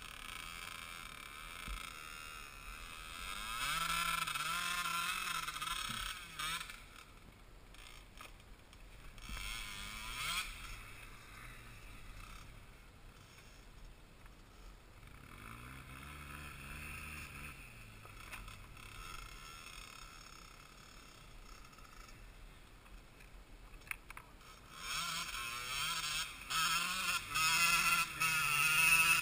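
Quad (ATV) engines running at a low idle and revving up and back down, about four seconds in, again around sixteen seconds, and loudest near the end.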